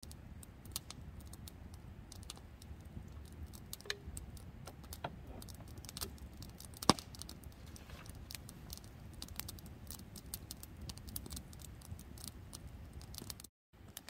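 Wood campfire crackling: irregular pops and snaps, with one sharp, much louder pop about seven seconds in, over a low rumble.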